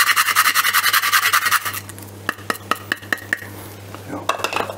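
Hand-held nutmeg mill grinding nutmeg: a fast, even rasping of about ten strokes a second that stops a little under two seconds in. A few light clicks and knocks follow.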